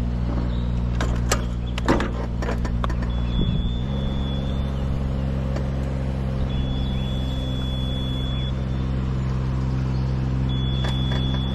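An engine running steadily at low speed, its pitch stepping up slightly about four seconds in. A few sharp knocks and clatter come in the first three seconds, and a thin high whine comes and goes three times.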